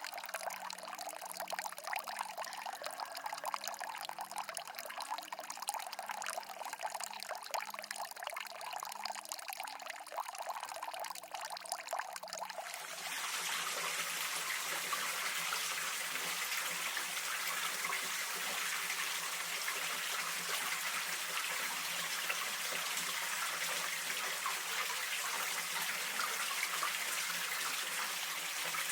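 Mountain stream water trickling and splashing. About thirteen seconds in it changes abruptly to a louder, steady rush of flowing water.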